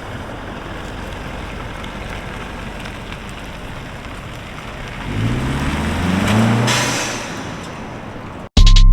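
Steady road and traffic noise, with a car engine rising in pitch as it accelerates past about five to seven seconds in. Music starts abruptly near the end.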